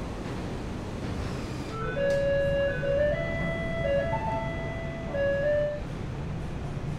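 An electronic chime plays a short tune of clean, held notes for about four seconds, starting about two seconds in, over the steady hum of factory machinery.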